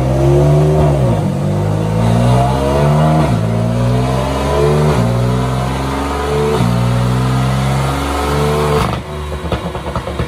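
2015 BMW M4's twin-turbo inline-six at full throttle on a chassis dyno, climbing in pitch through the gears with a sharp drop at each upshift, about every second and a half. About nine seconds in the throttle closes, and the engine falls away with rapid crackling pops from the burble tune.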